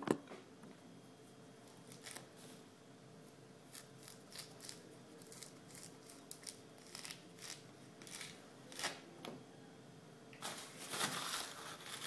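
Green mandarin being peeled by hand: the rind tears off in short, crackly rips, one after another. Near the end comes a longer, denser rustle of tissue paper being handled. A single sharp knock sounds right at the start.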